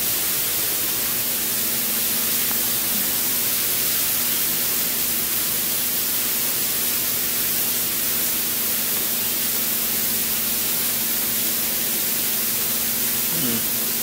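Steady, loud hiss with a faint low hum beneath it, unchanging throughout.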